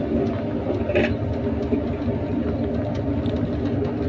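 Steady engine rumble and running noise of a small tourist road train, heard from its open-sided passenger carriage as it drives along, with light rattles.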